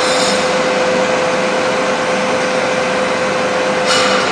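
Titan SC 33 vertical turret lathe running under power: its drive motor and gearing give a steady hum and hiss with one constant whine. A brief brighter hiss comes near the end.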